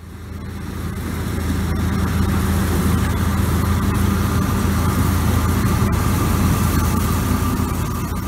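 John Deere 3300 combine running steadily while harvesting corn: a deep engine hum under the constant rushing noise of the header and threshing machinery. It fades in over the first two seconds.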